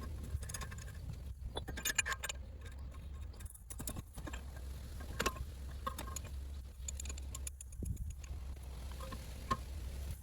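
Metal hand tools and parts clinking and tapping: scattered sharp clicks, some with a short ring, over a steady low hum.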